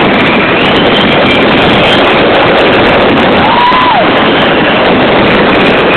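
Fireworks barrage, explosions and crackle so dense and loud that they run together into one unbroken wash of noise that overloads the recorder. Just past the middle, a brief whistle-like tone rises and falls.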